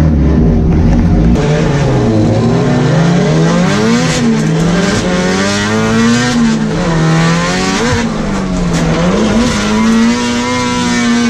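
Nissan S13's turbocharged SR20DET four-cylinder engine heard from inside the cabin during a drift, its revs rising and falling every second or two as the throttle is worked, with the tyres squealing underneath.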